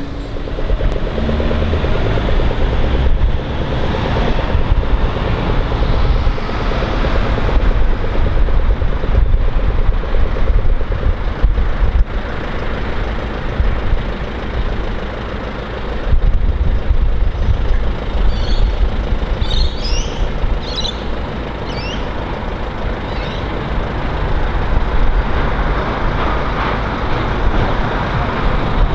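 Street traffic and a Melbourne tram running along street tracks, a steady rumble heavy in the low end. A few short, high, rising chirps come about two-thirds of the way through.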